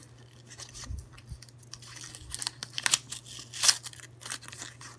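Clear tape being peeled off a folded paper envelope, with the paper crinkling: irregular sharp crackles and short rustles, the loudest about three and a half seconds in.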